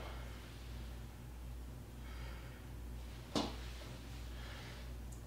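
A single sharp tap a little past halfway, metal on metal, as a level is handled on the grinder's steel table. Soft breathing twice, over a steady low hum.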